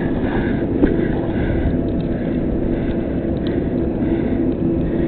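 Crane engine running with a steady drone, with a few light clicks.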